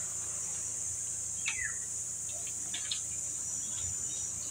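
Steady high-pitched drone of insects in the trees, with a few short bird chirps over it, the clearest a quick falling chirp about a second and a half in.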